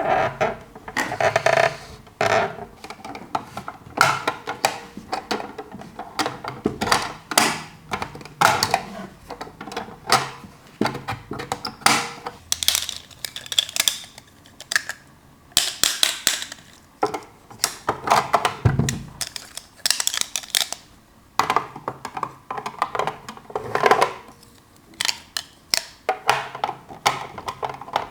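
Small plastic toy parts and packaging being handled: an irregular run of clicks, taps, light clatter and rustling.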